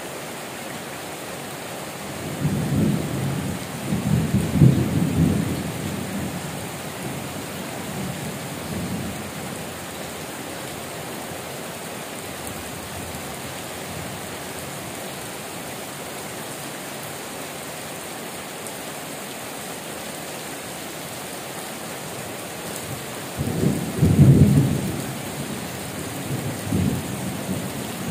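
Heavy rain falling steadily on corrugated metal roofs and leaves, with two rolls of thunder rumbling, one a couple of seconds in and a louder one near the end.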